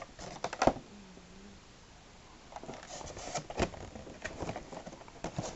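Clear plastic blister packaging crinkling and clicking as it is handled and turned over, with a burst of sharp clicks about half a second in and a run of crackles through the second half.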